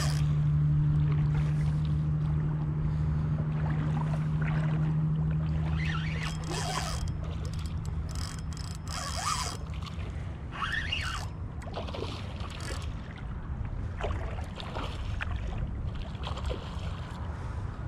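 A boat motor running steadily at low speed, a low humming drone that eases off after about six seconds, with short high chirps scattered over it.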